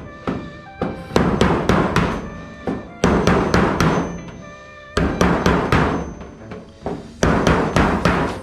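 Pneumatic air chisel hammering against rivets in an aluminium airframe, in four short bursts of rapid knocking about two seconds apart. The sheet metal rings with each burst.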